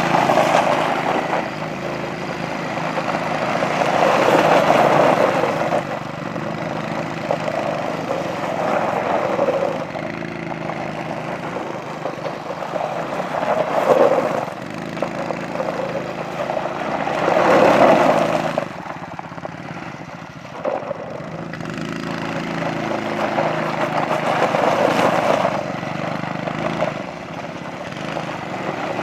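Small single-cylinder 110cc engines of CFMOTO CForce 110 youth ATVs running at high revs, often against the rev limiter of the low-speed mode. The sound swells and fades several times as the quads pass close and ride away.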